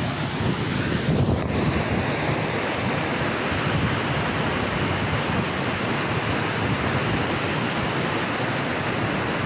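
Waterfall's falling water rushing steadily, an even wash of noise that holds at one level throughout.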